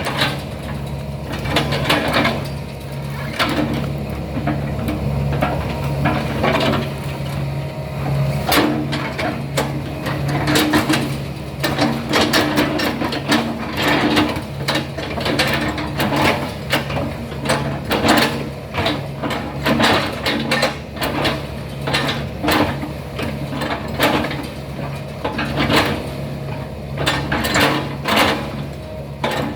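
Excavator's diesel engine running steadily under work, with frequent sharp clanks and knocks from the machine throughout.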